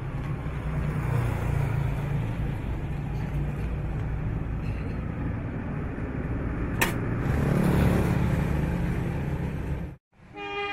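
Street traffic: a steady low rumble of motor vehicles with road noise. It swells as a vehicle passes about three-quarters of the way through, and there is one sharp click about seven seconds in. It cuts off suddenly just before the end.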